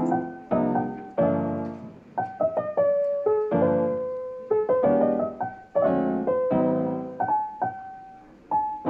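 Background music: a soft piano tune of struck chords and single notes that ring and fade.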